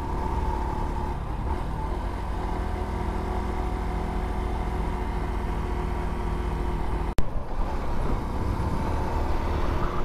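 Motorcycle engine running steadily under load in third gear while climbing a steep hill, labouring to pull up the grade, with road and wind rumble. A sharp click and a momentary dropout about seven seconds in, where the recording is spliced, after which the engine sound carries on.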